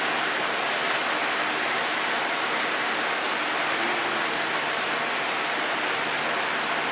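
A steady, even rushing hiss.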